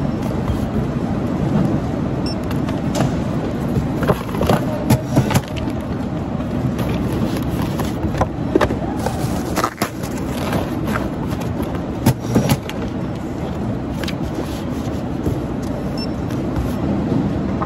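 Steady machinery din of a warehouse packing line, with the knocks and clatter of cardboard boxes and items being handled and closed at the packing station: a burst of sharp knocks about four to five seconds in, another near the middle, and a pair about twelve seconds in.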